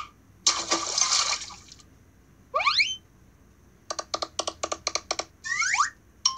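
Cartoon sound effects: a splash about half a second in as a character dives into a pool, then a quick rising whistle-like glide, a fast run of about ten short pitched notes, and falling glides near the end.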